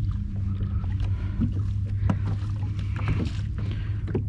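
A kayak on open water, with small irregular knocks and splashes against the hull over a steady low hum.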